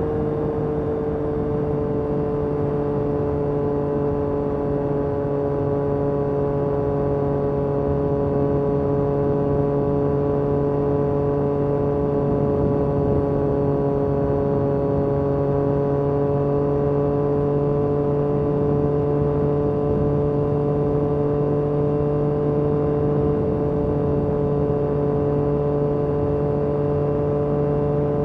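Yamaha MT-09 SP's three-cylinder engine running through an Akrapovic carbon exhaust at steady revs. The pitch eases down a little in the first seconds, then holds level.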